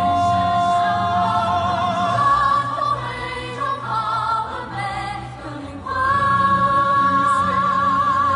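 A woman singing a musical-theatre number over a full musical accompaniment, holding long notes with vibrato. The loudness dips around the middle, then a higher note is held from about six seconds in.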